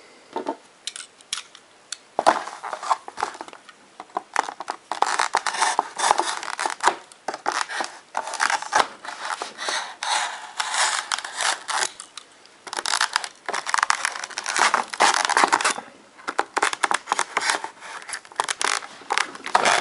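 Utility knife cutting and prying through a stiff, hard plastic clamshell blister pack. It makes irregular runs of crackling, scraping and clicking, with short pauses between cuts.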